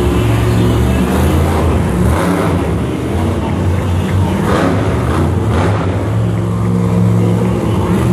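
Monster truck engine running loud in an indoor arena, dropping back about two seconds in and revving hard again near the end.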